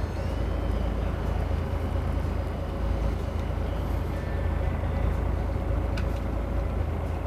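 Fishing boat's engine running steadily: a low rumble with a faint steady hum over it. There is a single light click about six seconds in.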